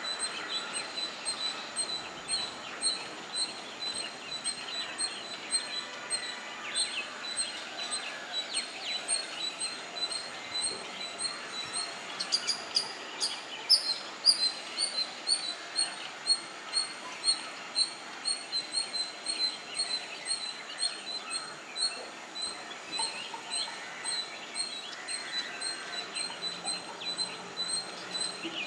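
Birds chirping and calling outdoors, many short scattered calls, over a high, even chirp that repeats two to three times a second. A few sharp clicks and a falling call come about halfway through.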